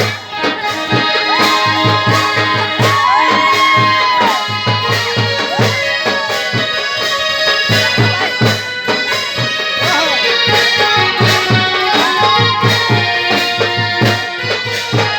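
Music with a steady beat, held chords and a gliding melody line.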